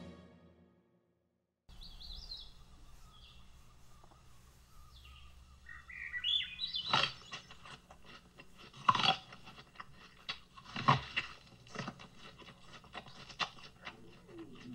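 Birds chirping and twittering faintly over a low background hiss. From about halfway through come a handful of sharp knocks, roughly two seconds apart and louder than the birds.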